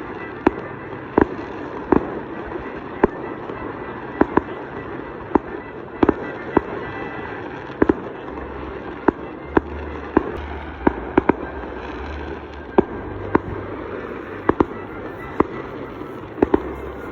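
Fireworks display: sharp bangs of bursting shells at irregular intervals, about one a second, over a continuous background crackle.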